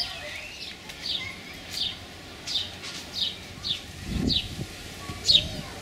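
A bird calling over and over in short, high, falling chirps, about one every two-thirds of a second. A brief low rumble comes about four seconds in.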